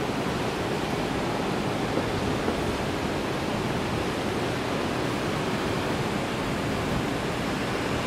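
Steady, even roar of jet airliner engines on the runway, with no rise or fall.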